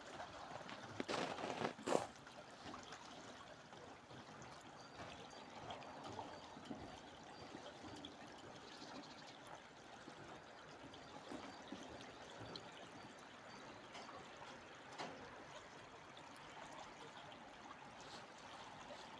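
Water of a stream running steadily, with a few footsteps about a second in.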